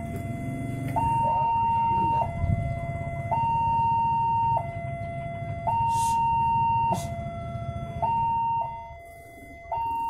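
Railway level-crossing warning siren sounding its two-tone signal, a higher and a lower tone alternating, each held about a second: the warning that a train is approaching the crossing. A low rumble runs beneath it.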